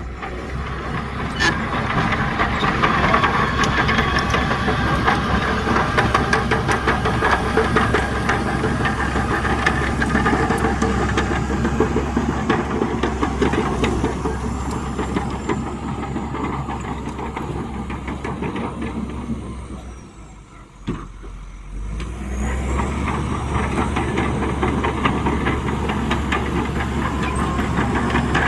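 Heavy diesel earthmoving machinery running steadily under load, with a constant patter of metallic clanks. About twenty seconds in, the sound drops away for a couple of seconds, then returns.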